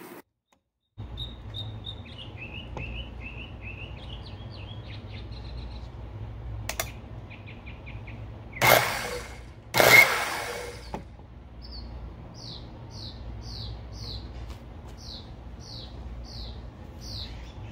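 Vintage Skilsaw Model 77 worm-drive circular saw, blade off, switched on twice in quick succession for under a second each time. Its motor makes a peculiar grinding sound, a sign of a carbon brush broken off its spring. Birds chirp before and after, with a run of short falling chirps near the end.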